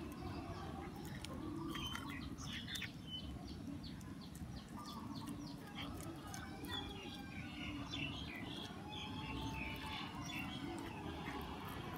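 A cat chewing and crunching on a chicken bone, with irregular crisp clicks, while birds chirp steadily in the background.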